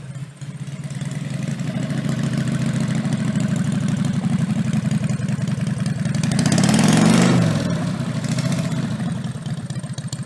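Home-built 60-degree V-twin minibike engine running on a test stand through short, open stainless exhaust pipes, with a rapid, even beat. It is revved up and back down once, about seven seconds in.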